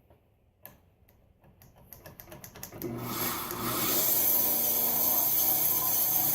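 Bandsaw being switched on: a click, then a quickening run of crackling clicks as the switch fails to make steady contact, which the owner puts down to dirty switch contacts after years unused. About three seconds in the motor catches, spins up and runs steadily with the blade whirring.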